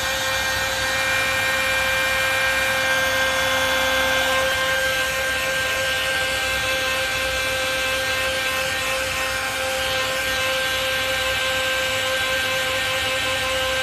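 Hair dryer running steadily: an even rush of air with a steady whine over it.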